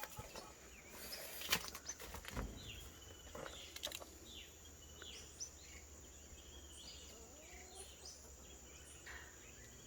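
Birds chirping in short, quick calls, with a few sharp clicks and knocks of handling in the first few seconds, the loudest about a second and a half in, over a steady high thin hiss.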